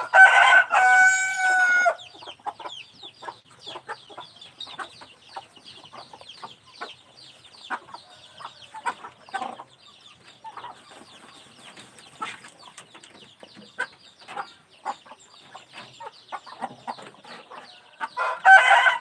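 A rooster crowing: one loud crow in the first two seconds and another starting near the end. In between come many quick pecking ticks of a rooster's beak picking feed from a bowl.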